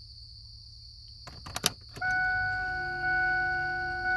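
Clicks as the ignition key of a 1999 Ford F250 7.3L diesel is turned on for preglow, then the dashboard warning chime sounding from about halfway in as a steady tone that swells again about once a second.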